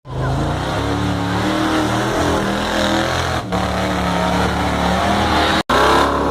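Off-road 4x4's engine running under load and revving, its pitch shifting up and down while rock crawling. The sound breaks off sharply twice, about halfway through and near the end.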